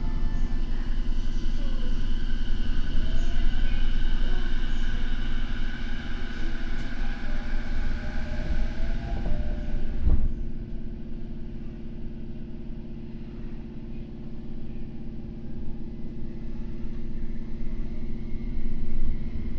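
Tokyo Metro N05 series train with Hitachi IGBT-VVVF control, heard from inside the car: the inverter and traction motors whine in several high tones that slowly rise in pitch, over a steady rumble of wheels on rail. About halfway through there is a knock, the whine drops out and the running gets quieter, then a new rising tone starts near the end. The uploader flags this car for unusual noise and suspects its traction motors were swapped for 15000-series ones.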